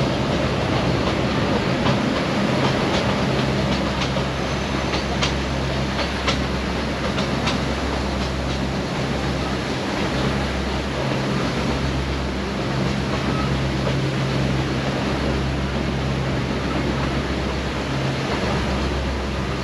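Narrow-gauge Neral–Matheran toy train running, heard from inside a coach: a steady rumble and rattle with a low hum that comes and goes, and a few sharp wheel clicks between about four and eight seconds in.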